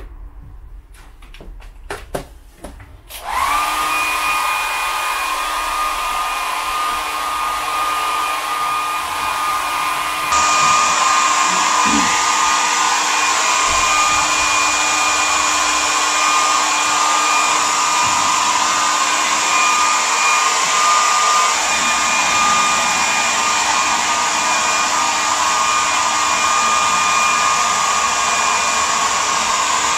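A few light knocks, then a handheld hair dryer switches on about three seconds in and blows steadily with a high whine. About ten seconds in its sound jumps louder and brighter and then holds steady.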